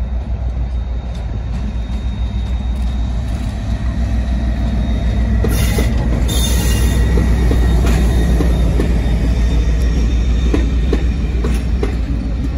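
Mainline diesel locomotive passing close by, its engine a deep, steady drone that grows louder towards the middle, followed by a rake of passenger coaches whose wheels click over the rail joints. A brief hiss comes about halfway through.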